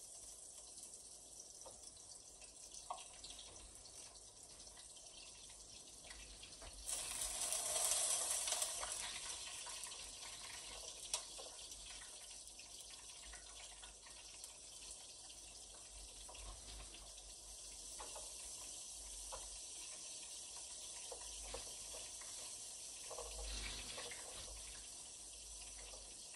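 Hot oil sizzling in a frying pan as egg-and-flour-coated pieces of white fish fry. About seven seconds in, the sizzle flares up loudly for a couple of seconds as a piece goes into the oil, then settles back to a steady sizzle, with a smaller rise near the end.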